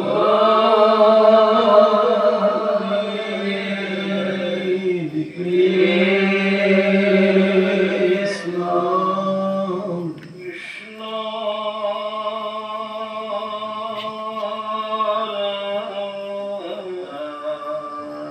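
Devotional pal-naam chanting: voices sing long, steady, held phrases, pausing for breath about five and ten seconds in.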